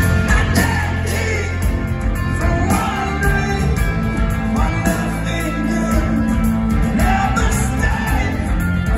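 A rock band playing live, with electric guitars, drums and a man singing over them, heard from within the audience in a large concert hall.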